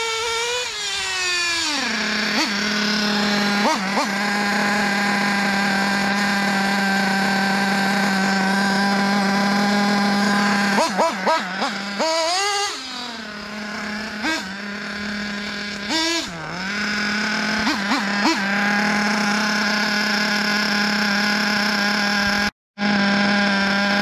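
Small nitro RC buggy engine (Tekno EB48 2.0 with an Alpha Dragon engine) idling with a steady high buzz. Its pitch falls from revving to idle in the first two seconds, and it is blipped on the throttle a few times about halfway through and once more a few seconds later. The sound cuts out briefly near the end.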